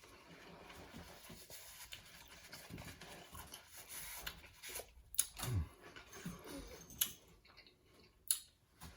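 Close-up eating sounds of a man chewing a sub sandwich: soft, faint mouth noises, then a few short sharp smacks or clicks in the second half.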